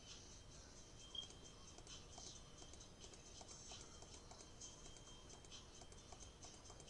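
Faint, irregular computer mouse clicks over near-silent room tone, with one slightly louder click about a second in.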